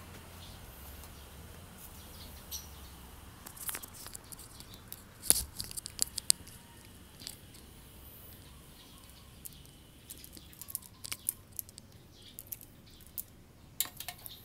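Scattered light clicks and taps of a charger cable and plastic parts being handled and routed along a motorcycle's frame, with the loudest knock about five seconds in.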